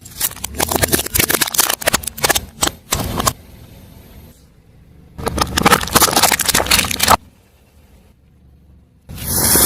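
Crunchy objects cracking and snapping under a car tyre as they are crushed, in two bursts of rapid crackling. About nine seconds in a steady loud hiss starts.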